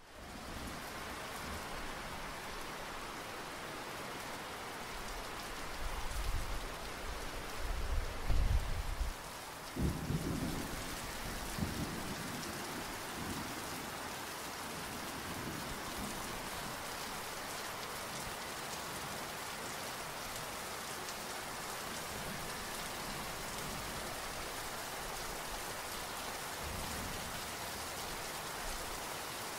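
Steady rain falling, with thunder rumbling low in the background, loudest from about six to twelve seconds in.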